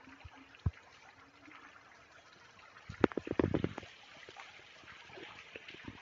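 Faint, steady trickle of water, with one dull thump near the start and a quick run of sharp knocks and scuffs about three seconds in.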